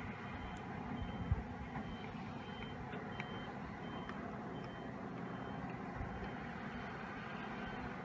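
Heavy earthmoving machinery (dump trucks and excavators) running, with a backup alarm sounding short high beeps at a steady pace. There is a single thump about a second in.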